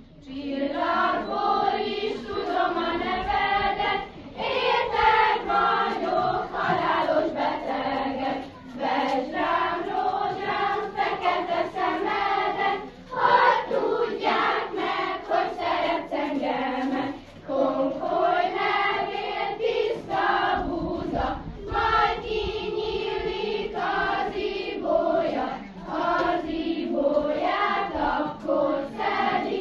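A group of young voices singing a song together, in phrases of about four seconds with short breaks between them.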